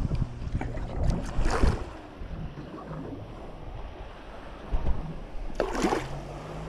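Wind rumbling on the microphone with handling noise, broken by two short noisy bursts, one about a second in and one near the end.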